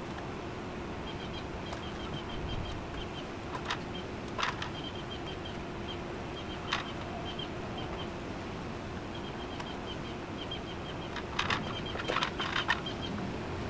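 Short high chirps at one steady pitch, repeated in quick runs, over a steady background, with a few sharp clicks and knocks about four seconds in, again around seven seconds, and a cluster near the end.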